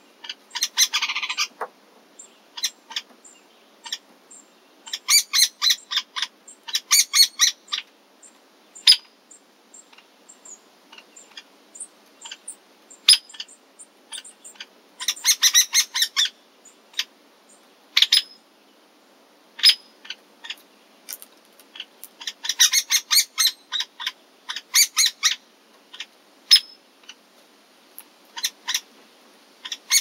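Hairy woodpeckers calling: a juvenile's chattering begging calls, fed by the adult, come in three bursts of rapid short high notes, with single sharp notes in between.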